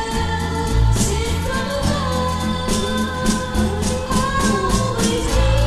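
Early-1960s pop record playing: a woman singing held notes over a band with bass and a steady percussion beat.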